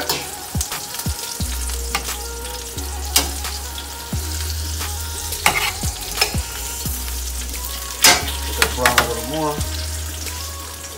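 Flour-and-egg-coated chicken breasts frying in hot oil in a stainless steel skillet, sizzling steadily. Metal tongs click against the pan several times as the pieces are lifted out.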